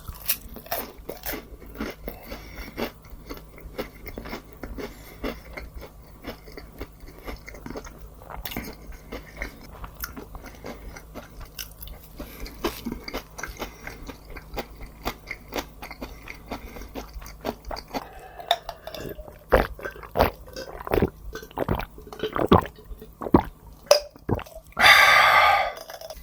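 A person chewing and biting food close to the microphone, with many sharp crunches and wet chews, growing busier in the last third. Near the end there is a loud rushing sound about a second long.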